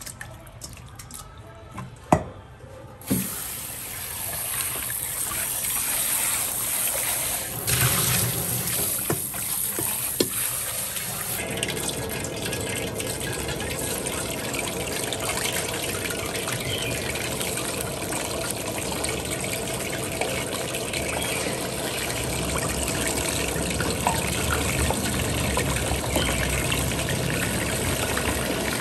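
Battered grouper pieces frying in hot oil in a pan, a steady crackling sizzle that starts suddenly about three seconds in after a few clicks of handling in a metal bowl.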